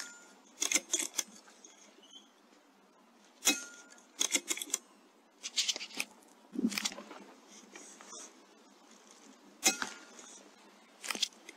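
A .22 Airmaks Krait L pre-charged pneumatic air rifle fired three times, each shot a sharp crack: one at the start, one about three and a half seconds in and one near the end. Between the shots come bursts of short metallic clicks and clatter.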